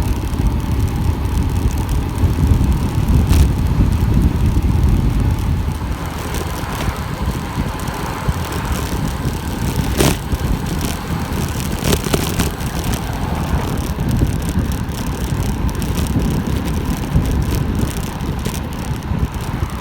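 Steady wind rush and rumble on a bike-mounted camera's microphone from a fast downhill bicycle ride, with the tyres running on the road underneath. A few sharp clicks and knocks come through, one about halfway through.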